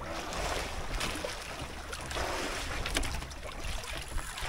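Wind on the microphone and sea water washing around a small boat, over a low steady rumble.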